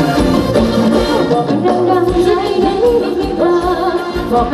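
Thai ramwong dance music with singing over a steady, even drum beat.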